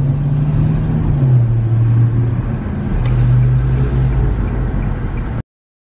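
Car engine running with a steady low drone and rumble. Its pitch dips slightly about a second in and rises again about three seconds in. The sound cuts off abruptly about five and a half seconds in.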